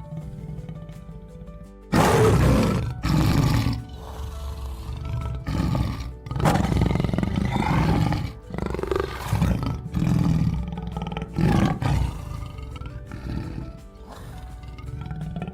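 An animal roaring repeatedly, loud rough roars starting about two seconds in and recurring for about ten seconds, over background music.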